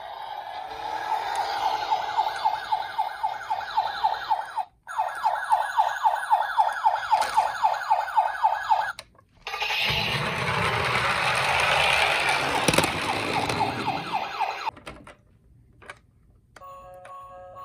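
Toy emergency vehicle's electronic siren sounding a fast yelp, about six sweeps a second, broken off briefly twice. It is followed by a louder, noisier stretch with a low rumble lasting about five seconds.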